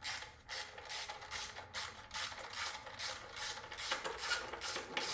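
Rhythmic scraping or rubbing strokes, about three a second.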